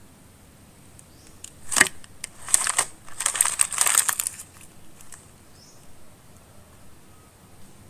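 Crackling, crunching noises of a crab meal being broken apart and eaten: one sharp crack about two seconds in, then a dense run of crackles for about two seconds.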